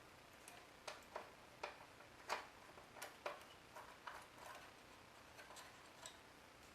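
A screwdriver turning a screw out of the player's casing: faint, irregular small clicks and ticks, thinning out toward the end.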